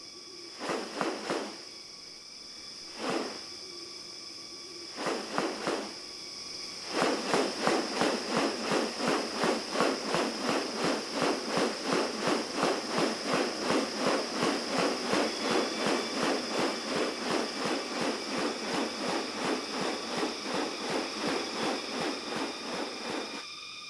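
Rainforest insects drone steadily and high, with a few short calls early on. About seven seconds in, a loud, fast rhythmic pulsing starts, about three pulses a second, and keeps on until near the end.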